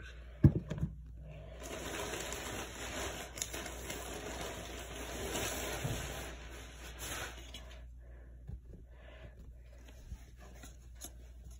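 A couple of sharp knocks, then several seconds of plastic-bag rustling and crinkling as a plastic mailer bag is opened and handled, tapering off near the end to a few light handling sounds.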